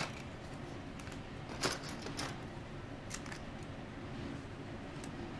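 A few light clicks and rustles of plastic model-kit parts trees being handled, the clearest two close together near the middle, over a faint steady room hum.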